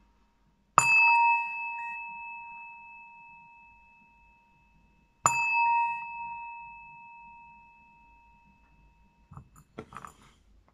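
Small brass singing bowl struck twice with a mallet, about four and a half seconds apart; each strike rings on with a clear tone and a higher overtone, slowly fading. Near the end come a few soft knocks of handling.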